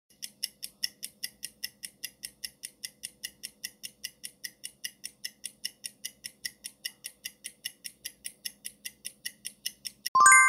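Countdown-timer sound effect: a clock ticking evenly at about four ticks a second, then a short, loud chime of several tones about ten seconds in as the countdown runs out.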